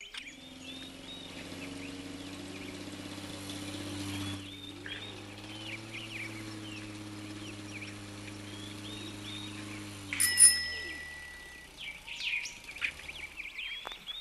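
Garden birds chirping and singing over a steady low mechanical hum, which fades away about ten seconds in. Just after that comes a sharp knock, the loudest sound, with a short ringing tone.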